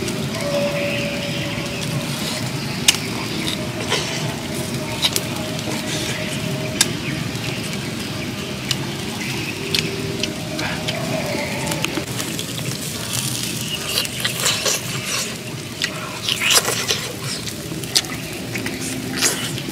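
Fingers stirring and pinching chili sauce in a coconut-shell bowl: scattered small clicks and crackles over a steady hiss of background noise, with a cluster of louder clicks near the end as grilled meat is pulled apart and bitten.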